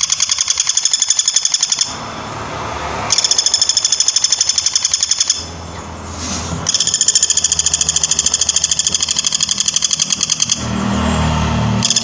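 Flameback woodpecker giving a loud, fast, even rattling call in three long bouts. Between the bouts come breaks of about a second filled with duller, lower noise, and the rattle starts again near the end.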